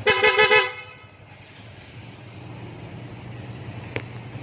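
Newly installed PIAA aftermarket horn on a Yamaha Mio Gear scooter sounding a rapid string of short toots, all over in under a second right at the start.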